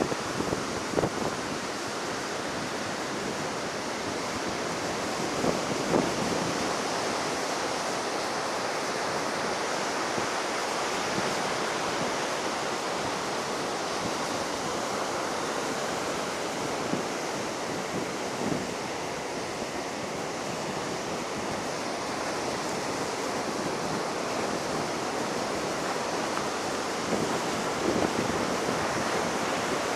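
Heavy ocean surf breaking and washing up the beach, a steady rush of noise, high after a typhoon, with wind on the microphone and a few brief thumps.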